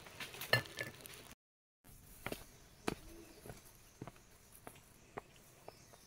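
Footsteps on a rocky trail strewn with dry leaves: scattered light clicks and crunches, broken by a brief dead-silent gap about a second and a half in.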